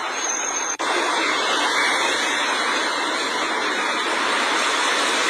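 Steady rushing noise of traffic on a flooded street, tyres and engines in the water, with a brief break a little under a second in where the recording cuts.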